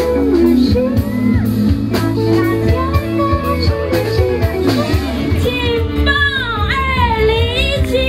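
A woman singing a pop song into a microphone over an amplified backing track with sustained bass and a steady beat.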